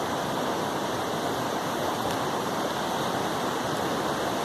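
River water rushing steadily past: a constant, even wash of flowing water with no break.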